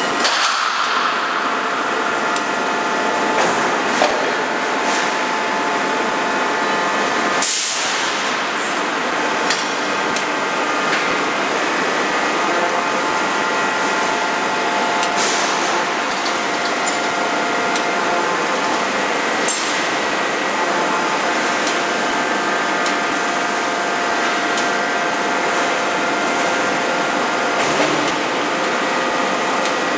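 Forging production line machinery running, with a steady hum and hiss. About half a dozen single sharp blows are spread out over the stretch, as from a forging hammer striking.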